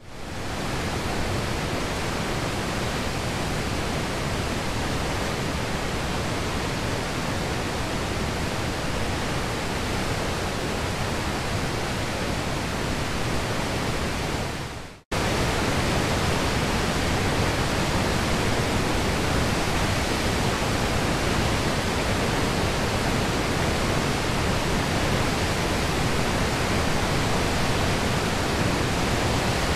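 The High Falls of the Pigeon River, a waterfall of nearly 120 feet in spring flow, give a steady rush of falling water with no break in it. About halfway through the sound fades out for a moment, then comes back a little louder.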